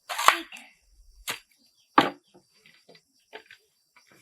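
A few sharp knocks on wood at irregular intervals, the loudest about two seconds in, opening with a longer rough scraping knock.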